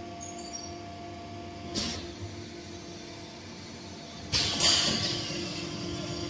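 Multiple-dosing static mixing machine running its automatic dosing cycle, its electro-hydraulic power unit (electric motors driving hydraulic pumps) giving a steady hum. A short knock comes about two seconds in, and a louder hissing rush about four seconds in.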